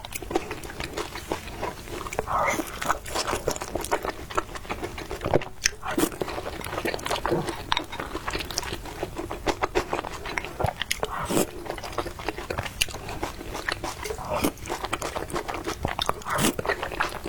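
Close-miked eating: a person biting and chewing food, with irregular crunches and moist mouth clicks.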